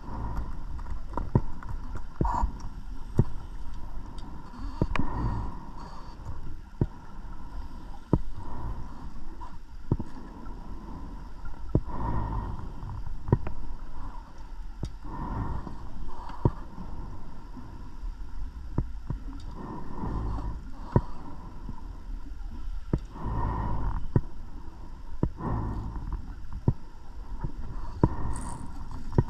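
Underwater sound of a scuba diver breathing: rushes of exhaled bubbles every few seconds, with scattered sharp clicks in between.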